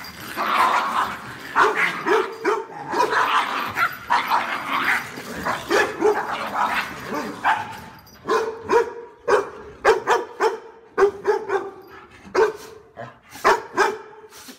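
Dogs barking during rough play: a dense tangle of overlapping barks for the first half, then a run of separate sharp barks, about two a second.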